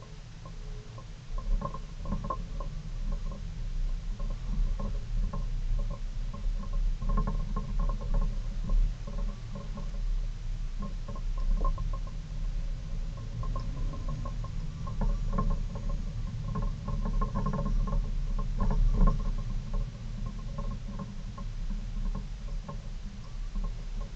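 Hyundai Avante race car's engine running at low revs, heard inside the cabin as the car crawls along in first and then second gear. Irregular light rattles and clicks run over the low engine rumble throughout.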